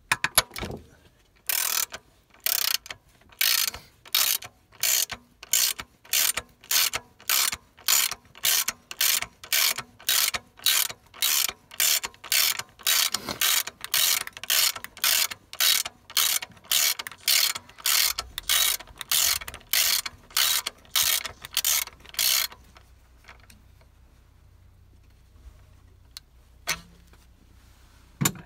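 Ratchet wrench working a 1/2-inch-drive impact stud extractor in short back-and-forth strokes to unscrew a sheared-off M10 alternator stud. Each return swing gives a burst of pawl clicks, about three strokes every two seconds for some twenty seconds. It then stops, with two single clicks near the end.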